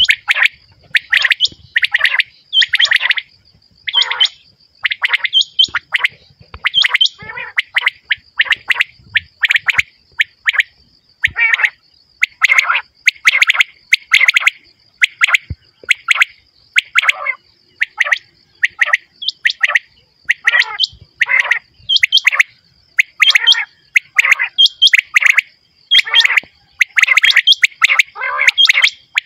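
Common quail calling over and over, in short notes repeated about one to two times a second with small gaps. A faint steady high whine runs behind the calls.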